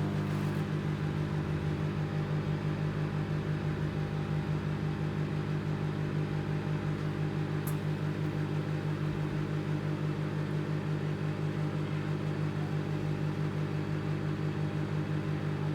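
Anko 700-watt microwave oven running: a steady hum with a slight, even pulsing. A single faint tick comes about eight seconds in.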